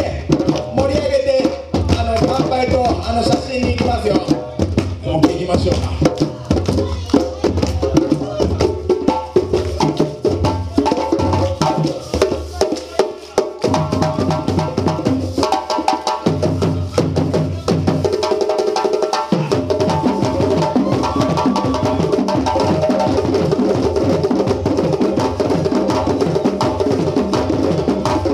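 West African hand drumming on djembes and dunun drums, a fast, dense rhythm in the Malinke tradition, with sharp high slaps over the low drums; the bass drums drop out briefly twice in the middle.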